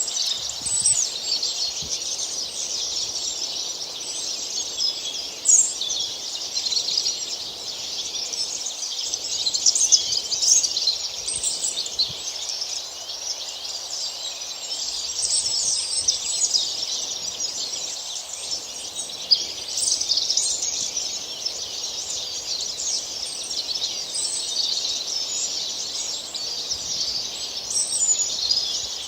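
Many small birds chirping and singing at once: a dense, unbroken chorus of high chirps, with a few louder calls standing out now and then.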